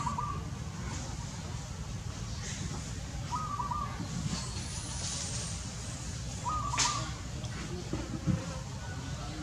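Outdoor ambience with insects: a short chirp repeating about every three seconds over a steady low rumble, and a single sharp click about two-thirds of the way through.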